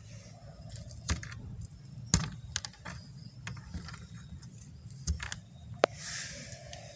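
Scattered sharp clicks and knocks of hard objects being handled and moved, with the loudest knock about two seconds in and a short hiss near the end.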